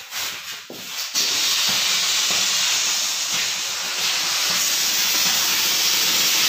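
Firework rocket motor igniting about a second in and burning with a loud, steady hiss as it sprays sparks.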